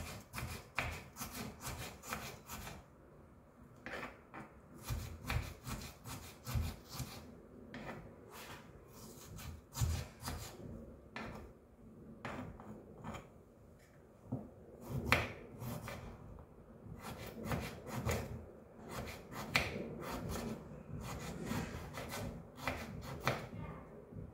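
Kitchen knife slicing ginger and amla (Indian gooseberry) finely on a cutting board: a run of quick, uneven cutting strokes and scraping.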